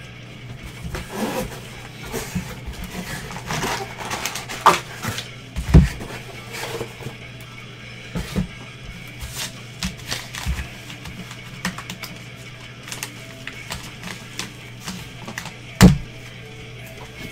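Handling noise from a cardboard box and a manila padded envelope being moved and opened: scattered rustles, taps and clicks, with two sharper thumps, the louder one near the end. A steady low hum runs underneath.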